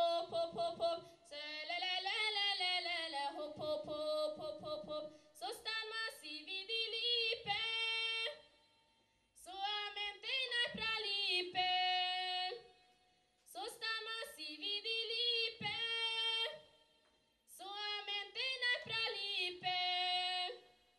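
A young woman's voice singing solo and unaccompanied: the sung opening of a song, in phrases of about three to four seconds with short silent pauses between them.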